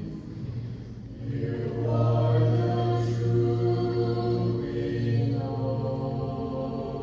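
Mixed-voice a cappella group singing slow, sustained chords over a steady low bass note, with no instruments; the chord swells louder about a second in.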